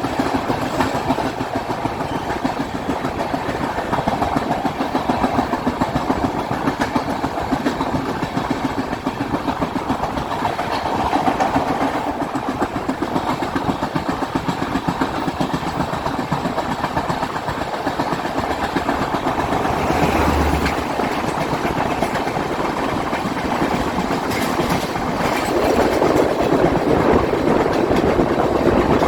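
Wheels of a passenger express train clattering over rail joints with a steady running rumble, heard from on board at speed; it grows louder near the end.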